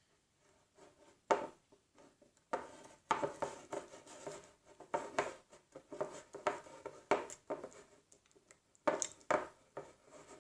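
Homemade glue slime being mixed with borax water: irregular sticky squelches and clicks, busier from about two and a half seconds in.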